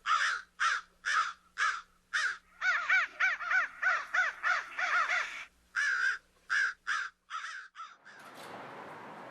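Crows cawing over and over, about two harsh caws a second, with several birds overlapping in the middle; the calls stop about eight seconds in, leaving a steady hiss.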